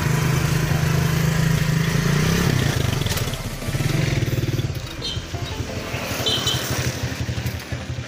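Kawasaki motorcycle tricycle idling, then revving a little after two seconds in as it pulls away. Its engine note grows fainter from about five seconds as it moves off.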